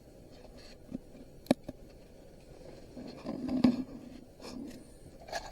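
Light clicks and taps of small scrap parts being handled and set on a kitchen scale, with a duller bump about three and a half seconds in.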